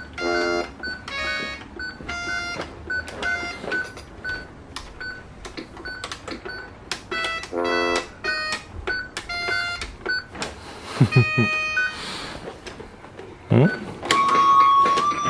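Children's electronic toy keyboard sounding short, separate electronic notes and beeps at irregular times as keys and buttons are pressed at random. Two louder swooping sounds come about two-thirds of the way through, and a held electronic tone starts near the end.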